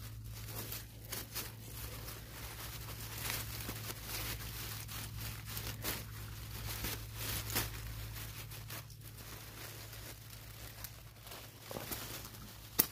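Dry sugarcane leaves and leaf litter rustling and crackling in short, irregular bursts under a gloved hand, over a steady low hum, with one sharp snap near the end.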